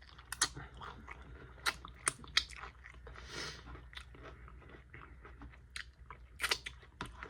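Close-miked chewing of barbecue chicken wings: irregular sharp smacks and clicks of teeth, lips and meat, with a short breathy noise about three and a half seconds in.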